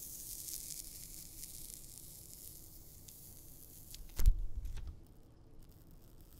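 Clear protective plastic film being peeled off a smartphone's glossy back: a faint crackling hiss as it lifts, with a sharp knock about four seconds in and a few small clicks just after as the film and phone are handled.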